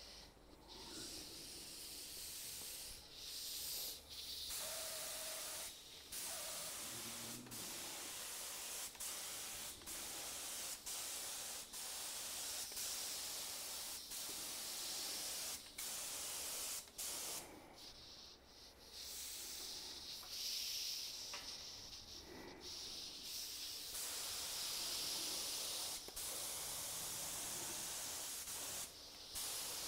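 Paint spray gun spraying primer in passes: a steady hiss that cuts off briefly every second or two.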